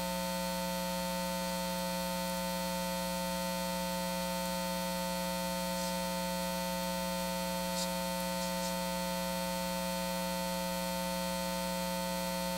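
Steady electrical mains hum, a buzzing tone with several overtones, with a couple of faint clicks about six and eight seconds in.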